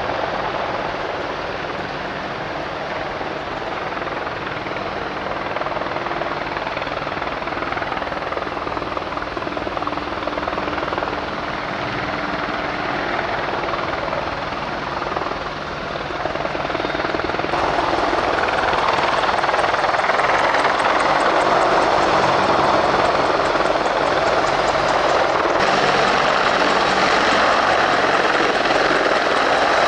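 AH-64 Apache attack helicopter flying low, its rotors and twin turboshaft engines running in a steady, continuous din that gets louder about halfway through as it comes closer.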